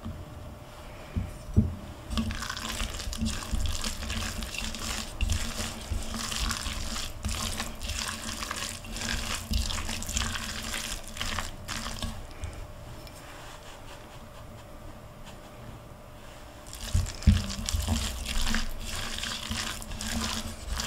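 Spatula stirring and mashing a wet salmon patty mixture in a mixing bowl, working in flour: squelching strokes and scraping against the bowl, with a few soft knocks. The stirring eases off for a few seconds about twelve seconds in, then picks up again.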